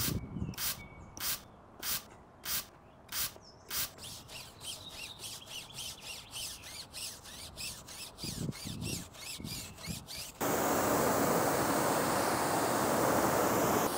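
A trigger spray bottle sprays wheel cleaner onto a car wheel in short, sharp squirts, about one every 0.6 s, then in faster, softer squirts. About ten seconds in, a pressure washer jet starts rinsing the wheel with a loud, steady hiss.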